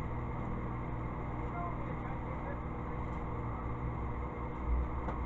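Microwave oven running with a steady electrical hum while a piece of unfolded fine grade 0000 steel wool sparks inside it, with faint scattered crackles.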